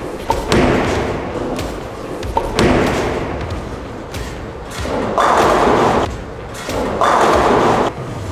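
Bowling ball released and landing on the wooden lane with a thud about half a second in, then rolling, among the thuds and clatter of a bowling alley. A second knock comes a couple of seconds later, and two loud bursts of about a second each follow near the end.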